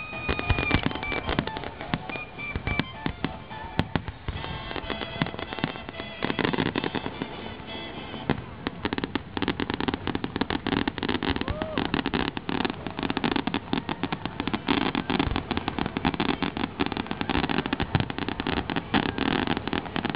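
Fireworks display: aerial shells bursting with sharp bangs, turning into dense, rapid crackling from about eight seconds in.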